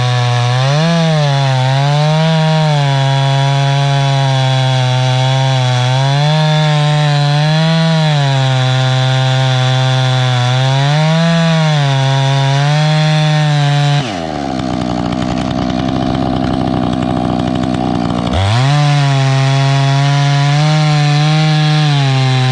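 Gas chainsaw running at high throttle while cutting wood, its pitch dipping and rising every couple of seconds as the chain loads in the cut. About two-thirds of the way through it drops to a low idle for about four seconds, then revs back up to full speed.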